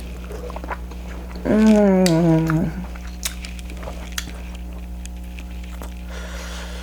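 A person chewing butter-dipped king crab with wet mouth clicks and smacks. About a second and a half in comes a drawn-out hummed "mmm" of enjoyment, over a steady low hum.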